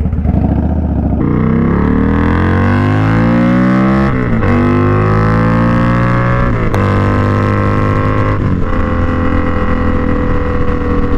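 A 2019 Indian Scout Bobber's 1133 cc V-twin, breathing through a Two Brothers Comp S 2-into-1 exhaust, idles, then pulls away and accelerates through three upshifts. The pitch climbs in each gear and drops at each shift, then settles into a steady cruise.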